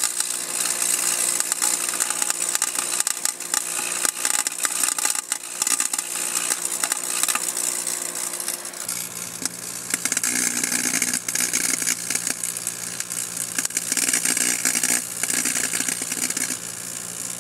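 Edwards fire alarm pull station burning inside a running microwave oven: dense crackling over the oven's steady hum, with a lower hum joining about halfway through.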